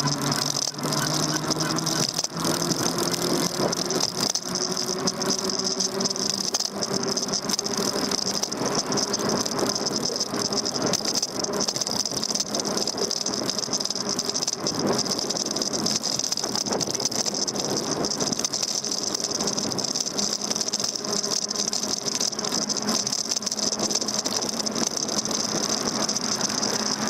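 Continuous rattling and road vibration from a Daymak Max e-bike's handlebar, picked up by a camera mounted on the bars while riding, with a faint hum rising in pitch over the first several seconds.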